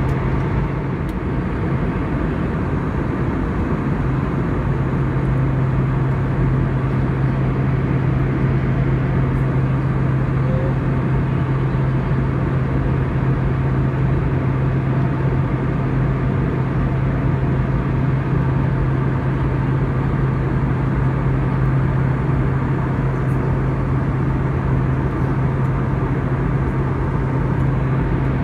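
Steady cabin noise inside a cruising airliner: a constant low hum under an even rush of engine and airflow noise.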